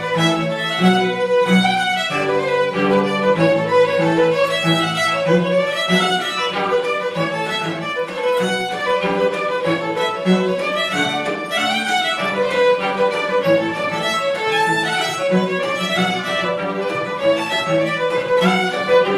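Small string group playing a traditional fiddle tune, a bowed fiddle melody over held lower string notes; the lower part drops back about eight seconds in.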